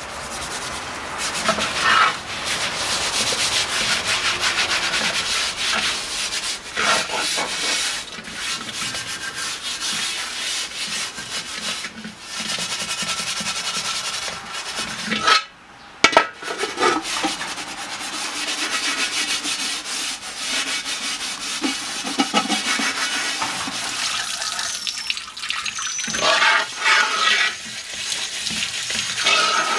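Metal scourer scraping the inside of a cast-iron sotttukkeong (Korean cauldron-lid griddle) with soapy water, a steady rasping scrub broken by a short pause about halfway through: the pan being scoured clean before seasoning. Near the end water from a hose runs into the pan as it is rubbed.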